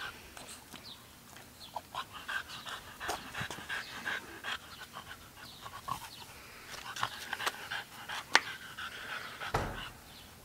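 A large dog panting, with scattered small clicks and rustles throughout; a sharp click comes a little over eight seconds in and a dull bump near the end.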